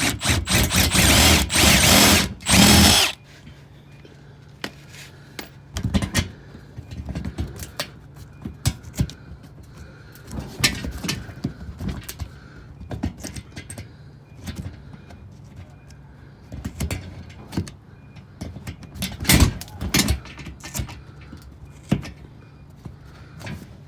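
Cordless power tool spinning on a 10 mm belly-pan bolt in several short runs for about three seconds; the bolt won't come loose. After that come scattered clicks and knocks of tools and metal being handled, the loudest knock near the end, over a faint steady hum.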